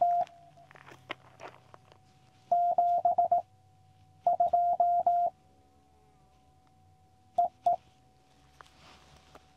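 Morse code (CW) tones from a QCX Mini ham transceiver's speaker: a single pitched beep keyed in quick dits and dahs. Two dense strings come a few seconds apart, with a couple of short beeps near the end and a faint steady tone at the same pitch in between.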